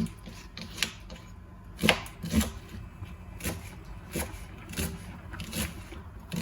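Kitchen knife cutting an onion on a cutting board: separate knocks of the blade on the board, unevenly spaced, roughly one every half-second to second.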